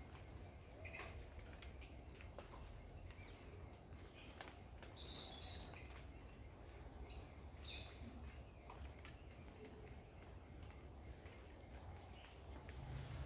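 Faint garden ambience: a steady high insect drone over a low rumble, with small bird chirps scattered through, loudest in a short burst of chirping about five seconds in and again near seven and a half seconds.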